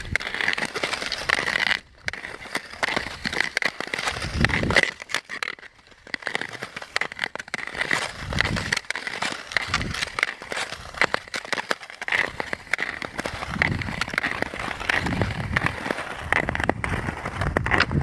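Skis gliding and scraping over bare lake ice: a dense, crackling scrape with slow low swells, dropping out briefly twice.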